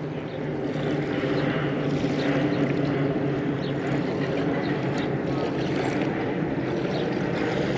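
An engine drones steadily at one even pitch.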